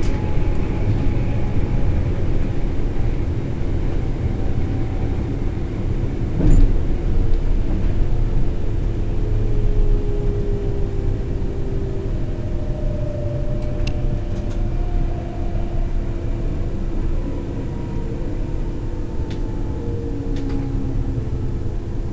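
Berlin S-Bahn electric train heard from the driver's cab, rumbling over the rails as it slows into a station, with thin whining tones that slide down in pitch. A single sharp knock comes about six seconds in.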